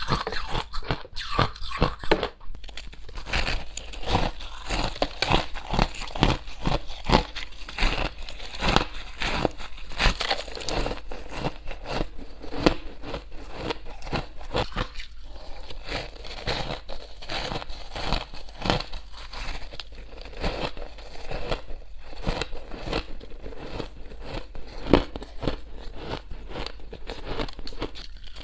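Crushed ice being bitten and chewed right at a clip-on microphone: a dense, irregular crunching and crackling, with a metal spoon scraping and scooping through the ice in a plastic container.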